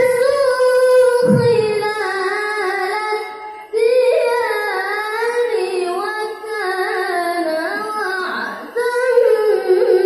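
A child qari reciting the Quran in the melodic tilawah style: one voice holding long, ornamented notes, with short breaths about three and a half seconds in and again near nine seconds.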